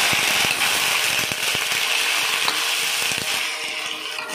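Raw chicken pieces sizzling and crackling loudly in hot oil in a steel wok, with the metal spatula scraping and clicking against the pan as it stirs. The sizzle eases a little near the end.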